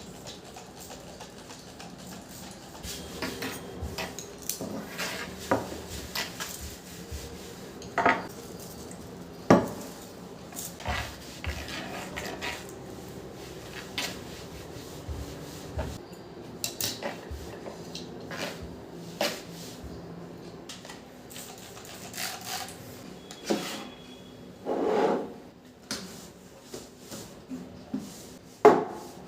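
Household objects being handled and put down: irregular clicks, light knocks and rubbing, with a few sharper knocks.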